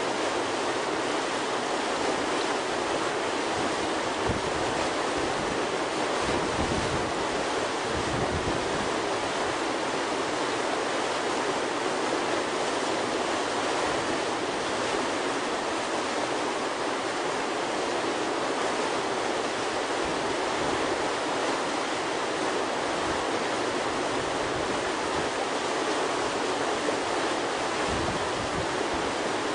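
Whitewater rushing steadily through a river wave hole, an even, unbroken hiss of churning water.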